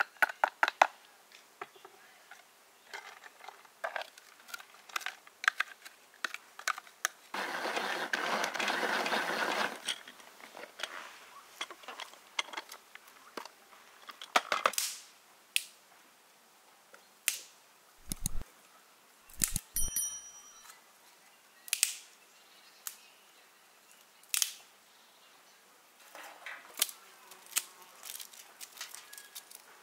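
Handling sounds of a plastic container, with scattered clicks and knocks, and a steady rustling pour lasting a couple of seconds as white grated food is tipped into a metal pan; this pour is the loudest part. A few deep thumps follow, and near the end dry twigs snap with sharp cracks as kindling is broken over a fire ring.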